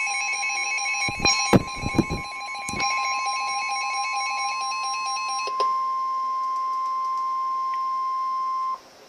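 Emergency Alert System attention tone for a flash flood warning: one steady high tone that cuts off abruptly near the end. For the first five and a half seconds a second, pulsing alarm that steps between pitches sounds over it, and a few knocks come between one and three seconds in.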